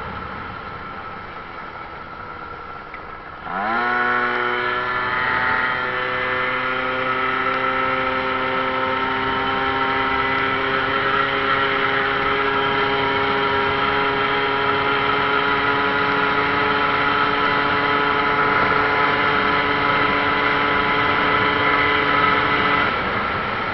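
Motor scooter's small engine under way: wind noise at first, then about three and a half seconds in the throttle opens and the engine note rises quickly and holds at a steady high pitch, easing off near the end.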